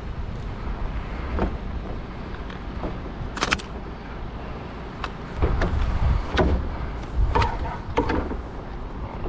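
Steady low rumble with several sharp clicks and knocks from an insulated hot stick and its metal fittings being handled; the loudest is a double click about three and a half seconds in, and the rumble swells over the next few seconds.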